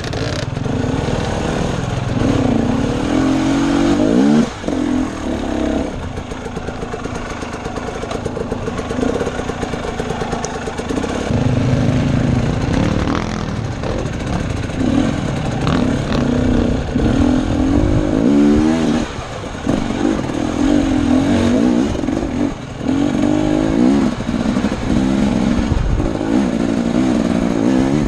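Husqvarna TE250 enduro dirt bike engine revving up and down with the throttle as it is ridden over rough, rocky ground, with the revs dropping briefly a few times, heard close from a helmet-mounted camera.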